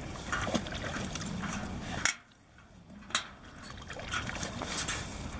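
Hooked trout splashing at the surface beside the dock as it is landed by hand: a series of short, irregular splashes over a low steady rumble, with a brief hush about two seconds in.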